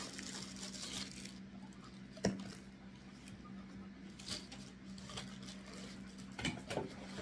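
Clear plastic packaging crinkling and rustling as a plastic-wrapped vacuum hose attachment is handled, in faint scattered crackles with a sharper click about two seconds in. A steady low hum runs underneath.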